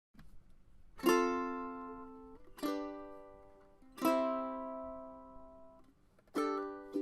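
Music: slow strummed chords on a plucked string instrument, four in all, each left to ring out and fade, with quicker strumming starting near the end.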